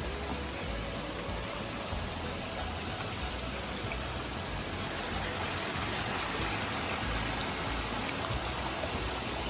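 Running water of a mountain stream, a steady rushing with no breaks.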